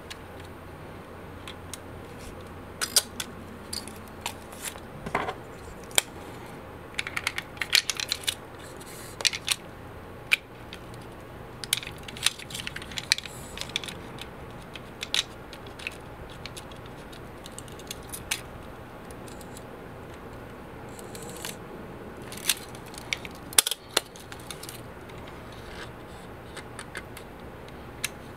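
Scattered sharp mechanical clicks, snaps and short ratcheting runs from a Pentax ME 35mm film SLR being loaded by hand: the back popped open, the film canister seated, the film advance lever wound and the back snapped shut.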